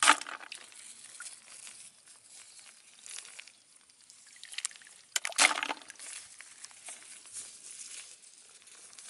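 Water sloshing and splashing amid a light crackling rustle, with two louder splashes: one right at the start and one about five seconds in.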